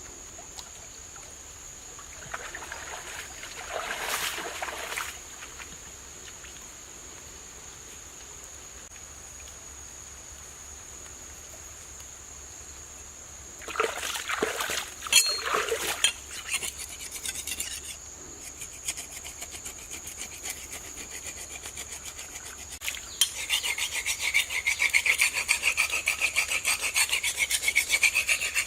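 Rapid rhythmic scraping or rasping by hand, with short bursts at first, then steady fast strokes that grow louder about three-quarters of the way in. A steady high whine sounds underneath throughout.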